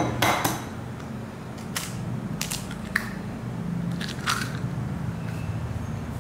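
A raw egg cracked open and dropped into a glass bowl of mashed potato, with a sharp crack at the start. A few light clicks and taps follow, spread across the next few seconds.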